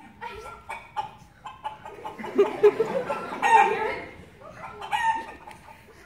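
Chicken-like clucking, then a louder run of crowing calls about two seconds in, and one short call near the end.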